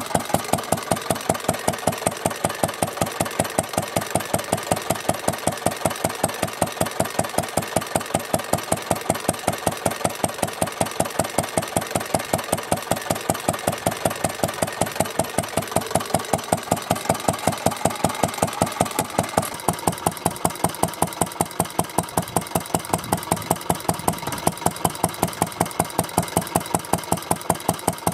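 Vintage Isami 2 HP single-cylinder stationary engine running steadily, its open flywheels spinning, with a regular beat of about four or five firings a second.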